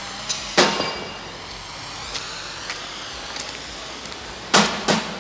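Hammer strikes on steel ducting pipe during fabrication: one sharp bang about half a second in, then a run of ringing blows about three a second starting near the end, over steady workshop hiss.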